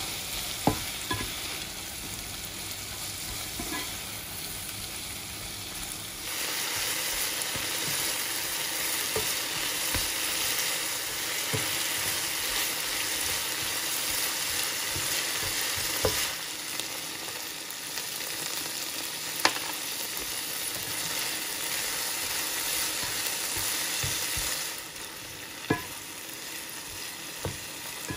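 Green beans sizzling in a hot nonstick frying pan as they are stir-fried, with a few sharp clicks of the slotted spatula against the pan. The sizzle grows louder about six seconds in and drops back a few seconds before the end.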